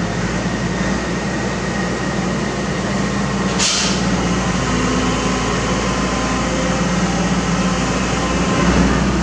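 Mini excavator's diesel engine running steadily under load as it tracks up the ramps onto the truck bed, with a short sharp hiss about a third of the way through.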